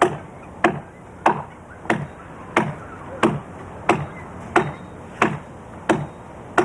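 Axe chopping into the trunk of a fallen tree: a steady rhythm of sharp chops, about three every two seconds.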